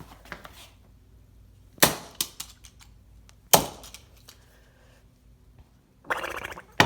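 Plastic wind-up toy being struck hard, sharp cracking impacts: three loud strikes about two seconds apart, with a lighter knock just after the first.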